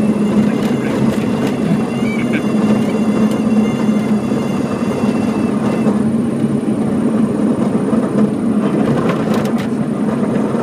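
Diamond DA40's engine and propeller at low power during the landing rollout, a steady drone with a strong low hum, heard inside the cockpit.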